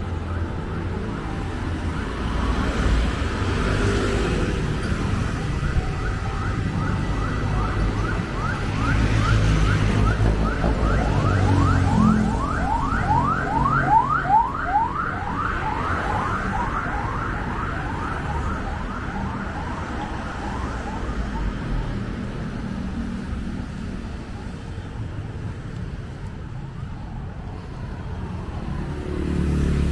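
Emergency vehicle siren in a fast yelp: quick rising sweeps repeated a few times a second. It grows louder toward the middle and fades out a few seconds before the end, over a steady rumble of passing road traffic.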